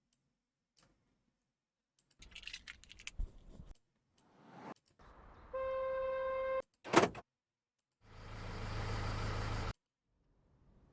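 Car sound-effect samples played one after another as short previews, each starting and stopping abruptly. Among them are rumbling vehicle noise, a steady horn tone held for about a second, a sharp loud burst, and a car's steady rushing pass near the end.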